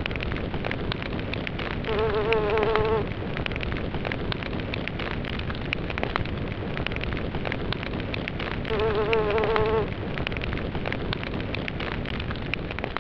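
Intro sound effect: a steady crackling hiss, with a wavering buzzing tone about a second long rising out of it twice, around two seconds in and again around nine seconds in.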